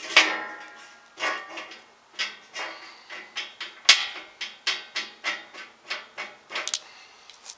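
Metal clanks, then a run of quick clicks about three a second, as the lower wheel guard is worked loose and taken off a band saw. The loudest click comes about four seconds in.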